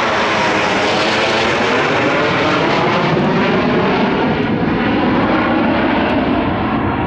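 Loud, steady roar of Blue Angels F/A-18 Hornet jet engines as a four-jet diamond formation flies over, the tone slowly shifting as they pass.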